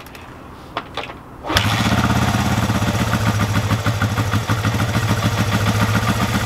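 Honda CB360's air-cooled parallel-twin engine starting on choke: a couple of brief knocks, then it catches about a second and a half in and runs steadily with an even exhaust beat. This is the first start on a newly fitted Shockwave electronic ignition in place of the points.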